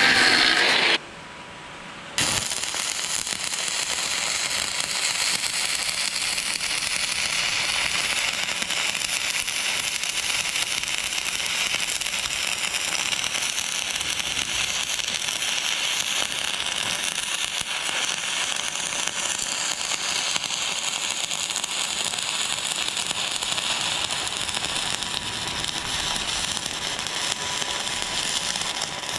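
An angle grinder grinding steel for about the first second, then, after a short pause, a stick-welding arc crackling steadily as weld rod is run into a ground-out crack in a steel excavator dipper arm.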